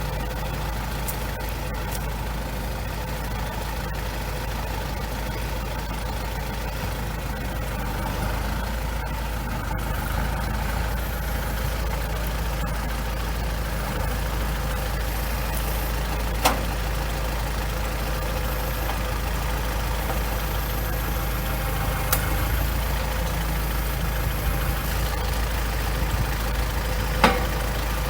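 Kubota L4701 tractor's diesel engine idling steadily, with a few short sharp knocks over it.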